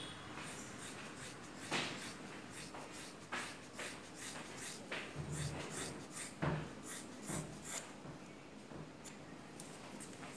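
Hair-cutting scissors snipping again and again through a thick ponytail, a long run of short, irregular snips that thins out near the end as the ponytail comes off.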